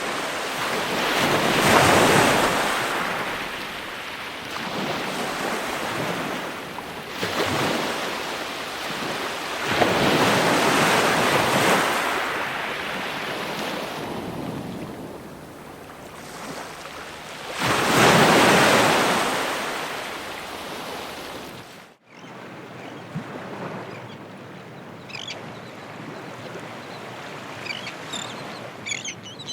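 Ocean waves breaking and washing up the shore, the surf swelling and falling away four times. About 22 s in it cuts to quieter, steadier surf with short bird calls near the end.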